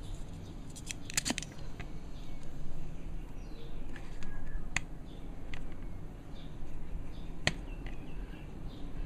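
Small hand tools clicking and tapping at a soldering bench while solder is being removed: a few sharp, separate clicks spread through, the clearest a double click about a second in and another single one near the end, over a steady low hum.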